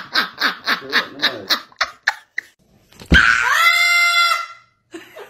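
A woman laughing hard in quick rhythmic bursts that fade out over about two seconds. About three seconds in, a loud, piercing parrot screech begins and holds steady for about a second and a half.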